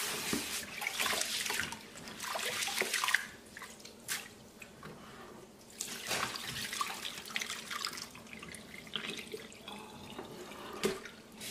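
Rice being rinsed by hand in a plastic bowl in a stainless steel sink: tap water running in while the grains are swished and rubbed, louder for the first three seconds, then the cloudy, starchy rinse water poured off into the sink.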